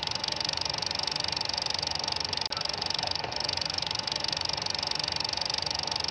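A steady hiss, strongest in the high range, with a faint dip that comes back about every four seconds, like a short looped background track.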